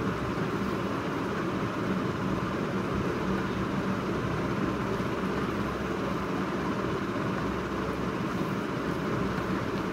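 Steady background noise: an even hiss with a low hum, unchanging throughout, with no distinct events.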